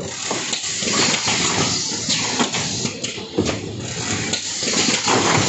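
Automatic rigid box making machine running: a steady hiss with irregular clacks and knocks from its moving parts.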